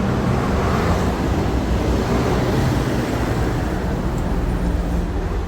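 Street traffic: vehicles driving past, a steady low rumble with a noisy swell as one goes by.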